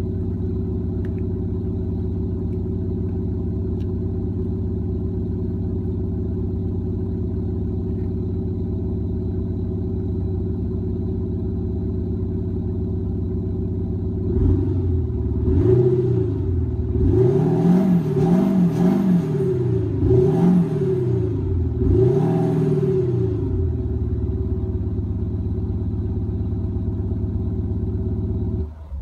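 Audi A7 BiTDi's twin-turbo V6 diesel, heard through the exhaust with its active sound generator, idling steadily, then blipped about five times in quick succession, each rev rising and falling, before settling back to idle. It is switched off right near the end.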